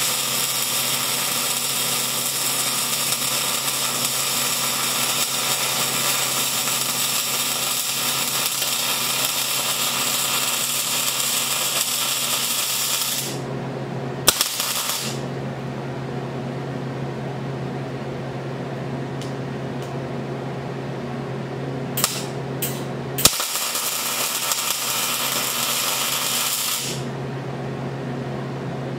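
Gas-shielded MIG welding arc crackling steadily as a weld bead is run on a steel mounting tab. It stops about halfway through, leaving a steady low hum and a few sharp clicks and taps. A second shorter bead crackles for about four seconds near the end.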